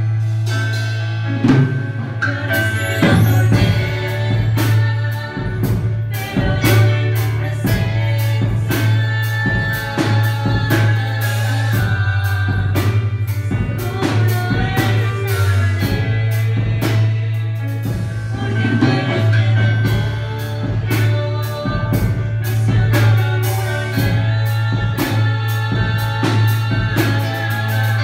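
Worship song performed live on an electronic keyboard over a steady drum beat and bass line, with a woman singing the melody.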